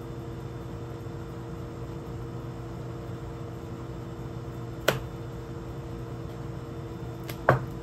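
A steady hum in the room, holding a few fixed pitches, with two short sharp clicks or taps: one about five seconds in and one about seven and a half seconds in.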